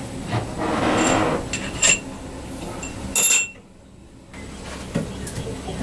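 Hand tools working on an engine's cylinder head: a few sharp metallic clinks with a ringing tone, among scraping and rattling, and the sound briefly drops away just past the middle.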